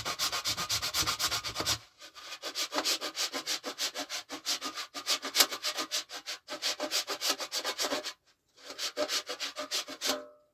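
A wax candle being grated on a metal box grater: quick, even rasping strokes, several a second. There is a short pause about eight seconds in, and the grating stops just before the end.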